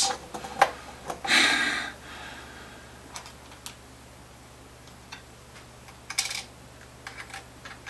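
Guitar tuner hardware handled on the headstock while new locking tuners are fitted by hand: light, scattered metal clicks and taps. There is a short rustle about a second and a half in and another near six seconds.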